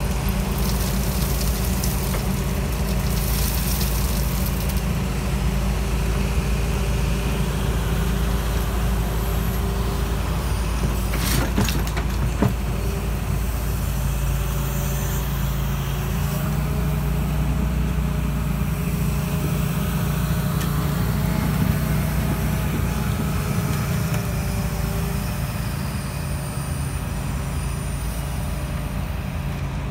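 Hitachi ZX225 excavator's diesel engine running steadily as the machine loads soil and swings its bucket, with a few sharp knocks about eleven to twelve seconds in.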